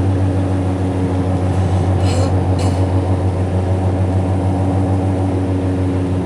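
Steady drone of a car driving on snow chains, heard from inside: a low hum with several steady tones underneath. Two brief high ticks come about two seconds in.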